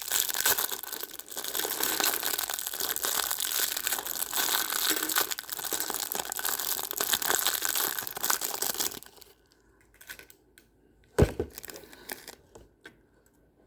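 Packaging being torn open and crumpled by hand: a dense, continuous crinkling and ripping that stops about nine seconds in. Then come a few light clicks and one sharp knock.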